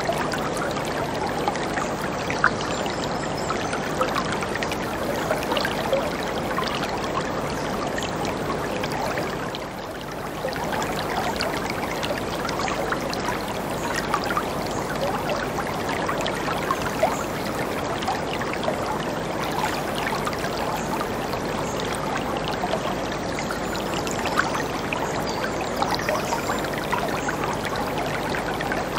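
Whitewater river rapids rushing over rocks: a dense, steady rush of turbulent water with fine splashing crackle, dipping briefly about ten seconds in.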